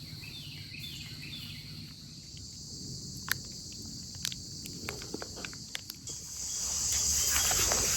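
A chorus of crickets and other insects keeps up a steady high-pitched trill that swells louder near the end. A few faint, sharp ticks come in the middle.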